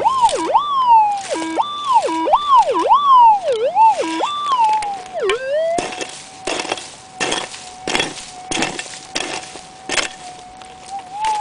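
Gold-prospecting metal detector's audio tone warbling quickly up and down in pitch as the coil is swept over a buried gold nugget. About six seconds in it settles to a steady hum while a pick chops into the stony soil, about two strikes a second.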